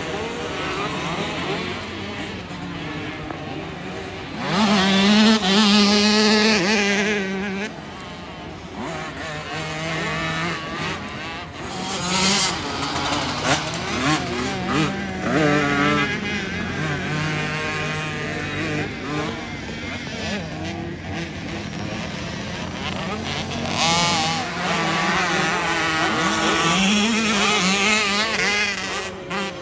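Several youth dirt bikes running around a motocross track, their engines revving up and down in pitch as they ride. The sound swells as a bike passes close about five seconds in and again near the end.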